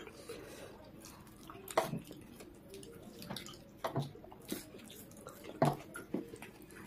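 Wet mouth clicks and smacks of people chewing food eaten by hand, at irregular intervals, with a few louder smacks about two, four and five and a half seconds in.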